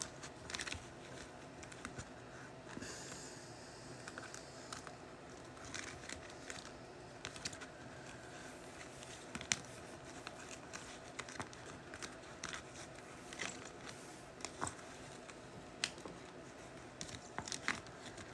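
Trading cards and plastic card sleeves being handled and sorted: scattered light clicks, rustles and crinkles over a faint steady room hum.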